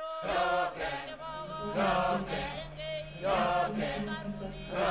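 A group of voices singing together, a slow chant-like hymn in phrases with held notes and a steady low note underneath.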